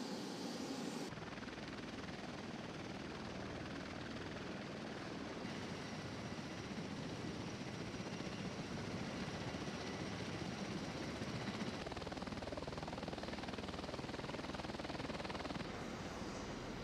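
MV-22B Osprey tiltrotor engines and rotors running with a steady, noisy drone, a faint high whine over it in the middle. The sound shifts abruptly in level and tone several times.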